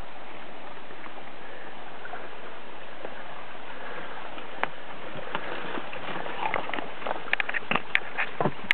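Footsteps on a weathered wooden boardwalk, a quick run of sharp clicks and knocks in the second half, over a steady hiss.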